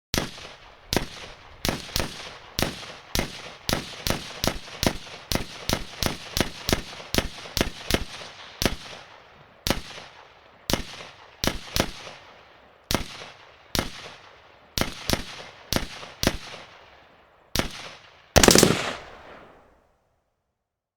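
M16 rifle firing repeated single shots, mostly two to three a second with short pauses, each followed by an echoing tail. A short fast burst comes near the end and rings away.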